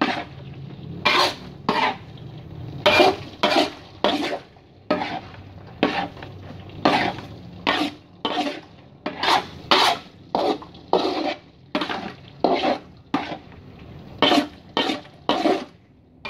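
A spatula scraping around a metal wok as thick peanut sauce is stirred, in repeated short strokes at about one and a half a second. The sauce is cooked down to the point where the oil from the candlenuts separates out.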